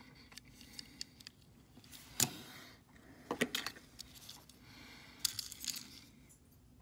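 Light clicks and clatter of small die-cast metal toy trucks being handled and swapped in the hand, with a sharper click about two seconds in and short bursts of rattling around three and a half and five and a half seconds in.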